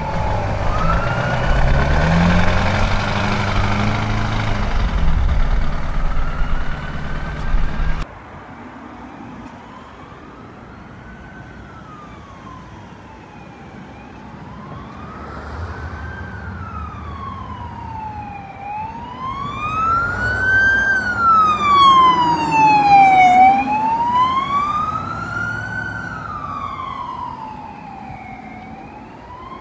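Heavy engine and road noise of a passing fire truck with a faint siren, cutting off suddenly about eight seconds in. An emergency-vehicle siren then wails, rising and falling about every five seconds, growing louder to a peak past the middle and fading as the vehicle moves away.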